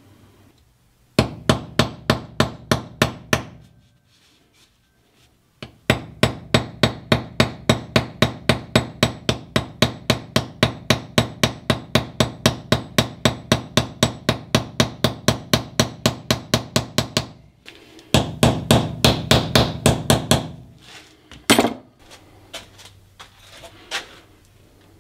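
Small hammer tapping rapidly on the metal pins of a wooden knife handle, peening them over, at about four to five blows a second. A short run of taps, then a long steady run, then a quicker flurry, with a few scattered knocks near the end.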